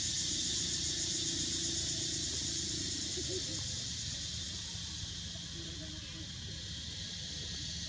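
Steady, high-pitched insect chorus droning without a break, over a low background rumble.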